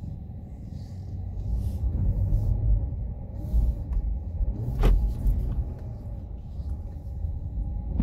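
Car tyres rolling over crunchy, packed snow, heard from inside the cabin as an uneven low rumble, with a sharp knock about five seconds in.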